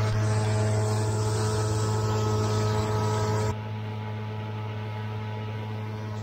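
Tractor-driven corn cracker and thrower running steadily, throwing cracked high-moisture corn: a steady low machine hum with a hiss of rushing grain. About three and a half seconds in, the sound drops and turns duller.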